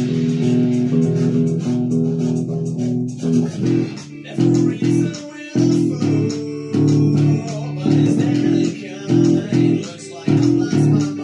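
Guitar music with bass guitar: held chords at first, then short rhythmic stabbed chords from about four seconds in.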